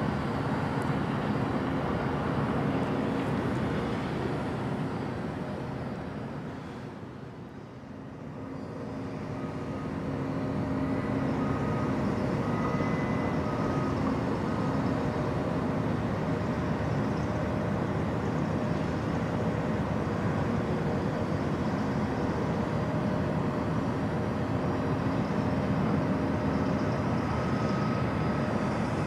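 Harbour tug's diesel engine running as it moves a barge on the river: a steady, noisy drone. It dips and swells back up about seven seconds in.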